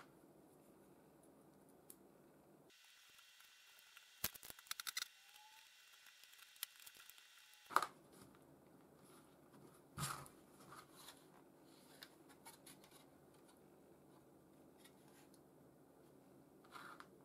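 3D-printed plastic parts being handled and fitted together by hand, giving scattered light clicks and knocks, with a cluster of small clicks about four seconds in and sharper knocks near eight and ten seconds.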